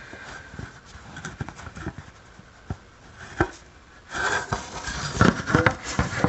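Handling noise from a camera being set up on a ladder: scattered clicks and light knocks, one sharper knock about three and a half seconds in, then louder rubbing and clattering near the end.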